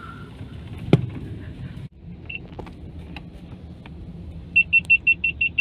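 Car rumbling slowly along, heard from inside the cabin, with one sharp knock about a second in. Near the end comes a quick run of about seven short, high electronic beeps.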